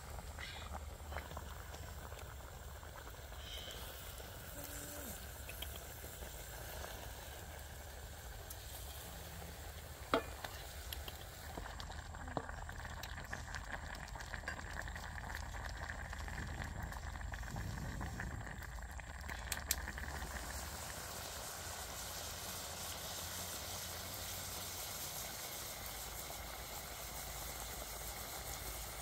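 Whole chicken sizzling and bubbling in a wok over a wood fire, a steady frying hiss with a couple of sharp clicks.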